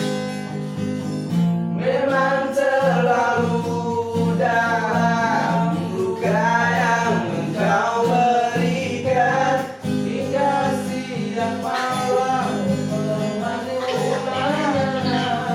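Music: guitar accompaniment with a melody line over it that bends in pitch.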